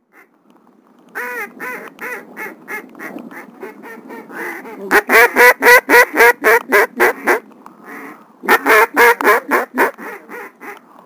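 Duck call blown in three runs of quacks, about four to five a second. The first run fades, and the second and third are loud and close.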